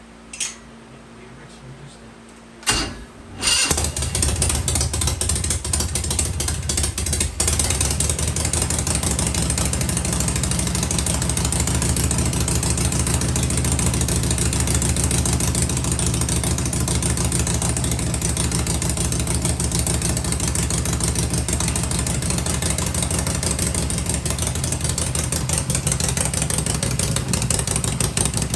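Harley-Davidson Shovelhead V-twin engine firing up about three seconds in after a brief quiet, then running steadily.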